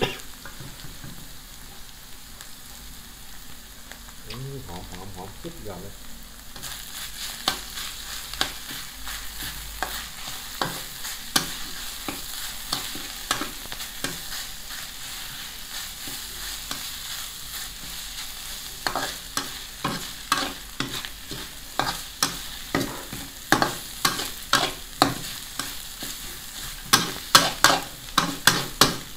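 Metal spatula scraping and tossing a minced mixture in a wok over a steady frying sizzle. The sizzle grows louder about six seconds in, and the scraping strokes come faster and harder toward the end.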